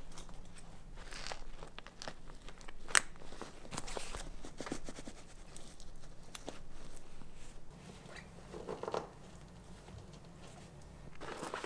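Bikepacking bags being packed and strapped onto a bicycle: nylon and dry-bag fabric rustling and crinkling while straps are pulled, with scattered clicks of buckles and fittings and one sharp click about three seconds in.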